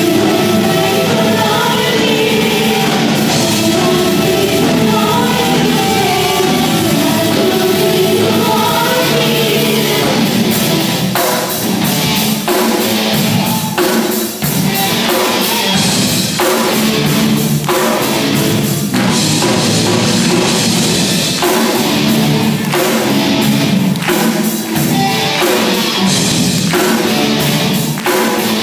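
Live rock band playing: a woman sings over keyboard and guitars for the first ten seconds or so, then the drum kit comes in with a steady beat under the electric guitar.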